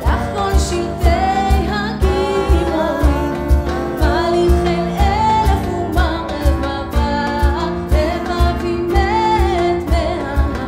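A woman singing a melody into a microphone over keyboard accompaniment, with a steady low beat and light percussion clicks.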